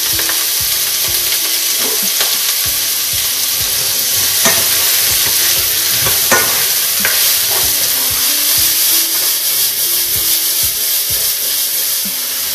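Diced vegetables sizzling in hot oil in a frying pan over high heat, with a steady hiss, while a spatula stirs them, scraping and tapping the pan now and then.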